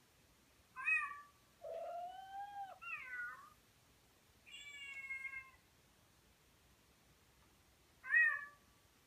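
Cats meowing: four separate meows spread over several seconds. The second one is longer, with a lower call rising underneath a higher one.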